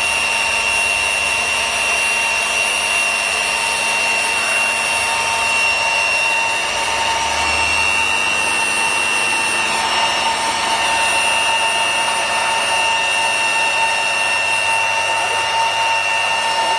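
Lab rotor-stator high-shear emulsifier homogenizer running at high speed in a beaker of white cream: a steady high-pitched motor whine that holds its pitch.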